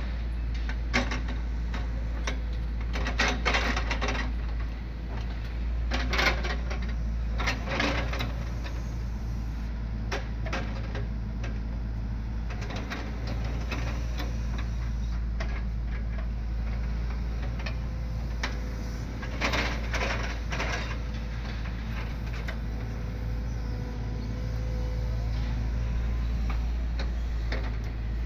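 Hydraulic excavator with a log grapple running steadily, with repeated knocks and clatters as logs are gripped, swung and set down on a truck bed; a cluster of knocks comes in the first eight seconds and another about two-thirds of the way through.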